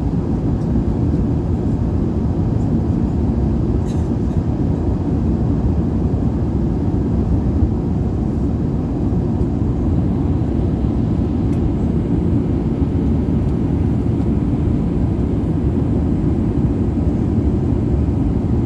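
Steady low rumble of an Airbus A380-800's engines and airflow heard inside the passenger cabin.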